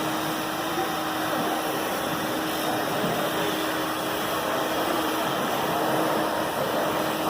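Ruwac 211H HEPA-filter industrial vacuum running steadily while extracting drywall-sanding dust: a constant rushing noise with a steady hum under it.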